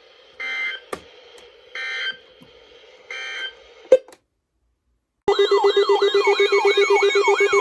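Three short bursts of NOAA Weather Radio EAS end-of-message data tones, each about half a second long and about a second and a half apart, followed by a brief silence. About five seconds in, several weather radios' alert alarms go off together, a warbling siren over a fast-pulsing beep, announcing a new alert.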